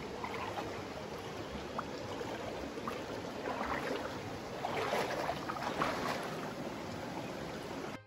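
Shallow forest stream running over rocks, a steady rushing. Crackly rustling of twigs and leaf litter joins in between about three and six seconds in.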